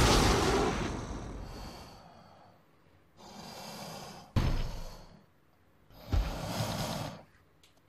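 Dragon sound effects: a loud fire-breath rush that fades away over the first two seconds or so, followed by two shorter breathy creature snarls, each starting sharply, the second about three seconds after the first.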